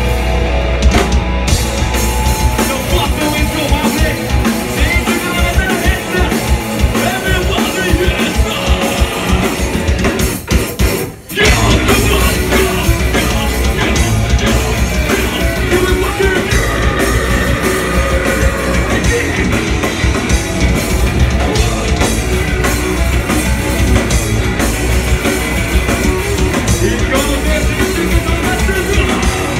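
Metalcore band playing live and loud: distorted guitars, fast drumming and vocals. The band stops briefly about eleven seconds in, then crashes back in.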